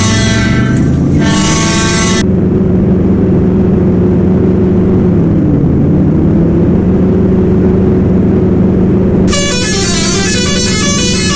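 Bus's multi-tone musical horn. Two short blasts sound in the first two seconds, then a low tone slides down and back up and holds steady. From about nine seconds in, a quick melody of stepping tones plays.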